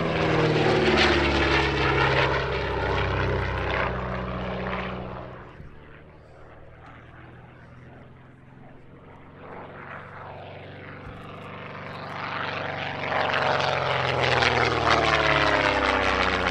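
Vintage racing aeroplanes, the de Havilland DH.88 Comet and the Percival Mew Gull, making low passes with their propeller piston engines. The engine note is loud and drops in pitch as the first pass goes by, then dies away over the first six seconds. It builds again to a second loud pass near the end.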